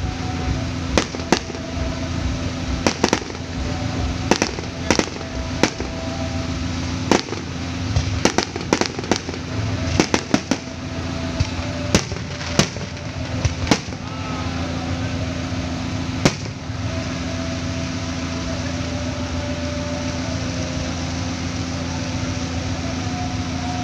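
Aerial firework shells bursting in a quick, uneven series of sharp bangs, some close together, stopping about 16 seconds in. A steady low hum runs underneath and is left on its own after the bangs end.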